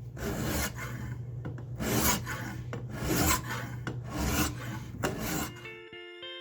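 Hand file rasping across a forged cable-damascus steel knife blade held in a filing jig, filing in the bevels: about five slow, loud strokes roughly a second apart. Guitar music comes in near the end.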